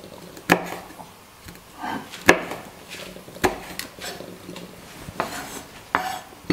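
Chef's knife slicing hot chili pepper into rings on a wooden cutting board: about half a dozen sharp, irregular knocks of the blade hitting the board, a second or more apart.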